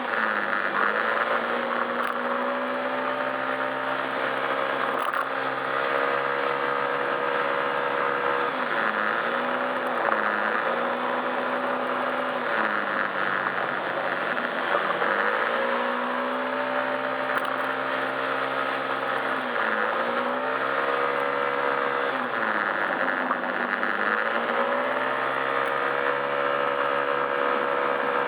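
Yamaha Majesty S scooter's single-cylinder four-stroke engine running on the move. Its pitch rises, holds and drops again every few seconds as the throttle is opened and eased, over a steady rushing noise.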